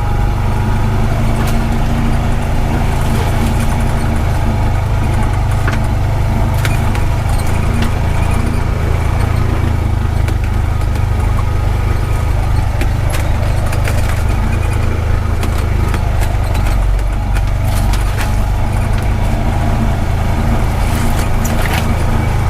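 Honda Pioneer 520 side-by-side being driven, its engine a steady low drone, with scattered clicks and rattles.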